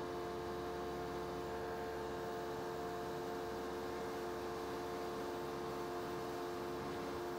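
Faint steady hum with a few held tones and a light hiss. There is no engine or rotor noise.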